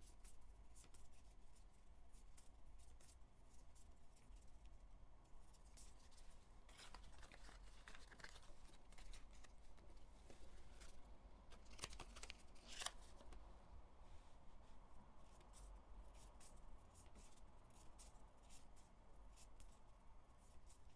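Faint clicks and rustles of glossy photocards being flipped through and set down among cardboard card holders. The handling is busier about seven to nine seconds in, with a couple of sharper clicks around twelve to thirteen seconds.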